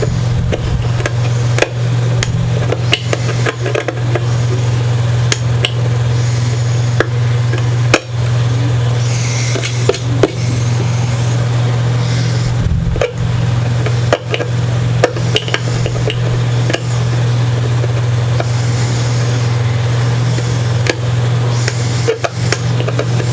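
A steady, loud low hum throughout, with scattered light clicks, taps and short scraping sounds of small hand work on a guitar body.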